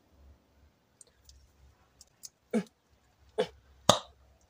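A glass pasta-sauce jar being handled and opened: a few faint clicks, then three short knocks and clicks in the last two seconds, the last the sharpest.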